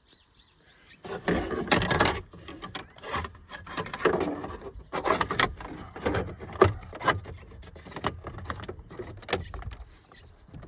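Hard plastic parts of a steering column being handled: irregular scraping, rubbing and clicking as a turn signal switch and its column cover are worked back into place, starting about a second in.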